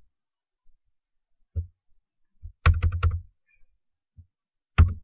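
Computer keyboard keys tapped to type a row of dots: a single tap, then a quick run of taps about two and a half seconds in, and one sharp tap near the end.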